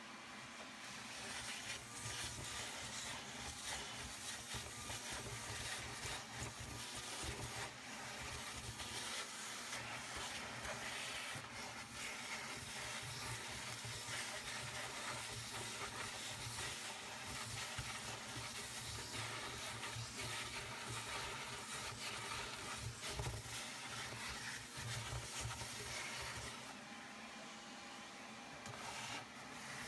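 Shop vacuum running with a steady rushing hiss as its hose sucks ash and soot off the firebox floor of a wood-burning stove. The sound eases somewhat near the end, then picks up again.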